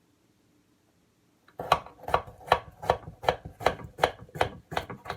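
Kitchen knife chopping carrots into small pieces: a steady run of about ten chops, roughly two and a half a second, starting about a second and a half in.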